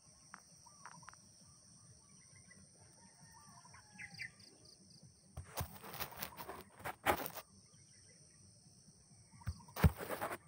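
Faint bird calls over a steady high-pitched whine, broken by loud rustling, crackling bursts about halfway through and again near the end.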